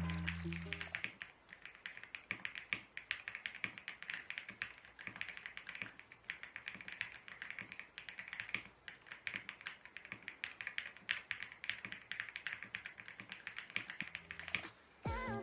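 Typing on a Qwertkeys QK65 mechanical keyboard in an acrylic case, fitted with JWICK Black 63.5 g linear switches and Shenpo keycaps. A fast, steady stream of keystrokes starts about a second in, with a few brief pauses, and stops just before the end.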